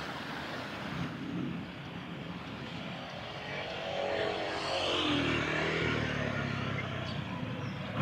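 Steady outdoor traffic noise, with a passing engine that swells and falls in pitch around the middle as it goes by.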